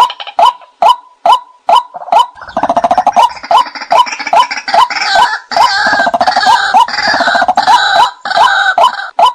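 White-breasted waterhen calls played as a hunting decoy: a steady series of sharp 'kwak' notes about twice a second. From about two and a half seconds in, a louder, harsher, buzzy stretch of calling joins them and stops shortly before the end.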